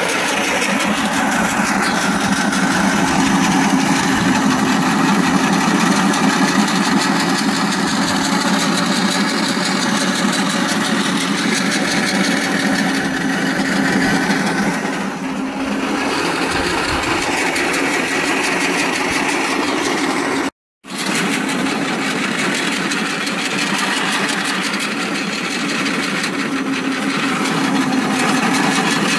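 Home-built roller pellet mill running steadily under its belt-driven motor while pressing out pellets. The sound cuts out for a split second about two-thirds of the way through.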